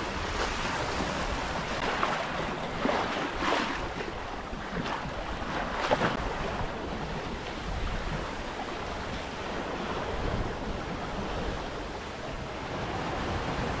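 Water rushing and splashing along the hull of a Sun Odyssey 36i sailing yacht moving fast under sail, with a few louder splashes, and wind buffeting the microphone.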